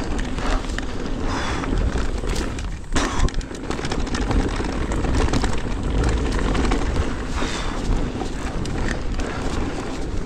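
Electric mountain bike ridden down a rough trail: tyres rumbling over dirt and roots, with many short knocks and rattles from the bike, over a heavy low rumble of wind on the microphone. The rattle from the rear end is still there, though the rider finds it much less with the RockShox Deluxe Select+ shock than with the Fox Float X.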